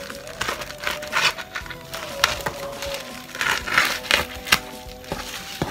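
Scissors snipping through the clear plastic stretch wrap on a cardboard box, the plastic crinkling and crackling in irregular bursts, with a few sharp clicks near the end. Background music plays underneath.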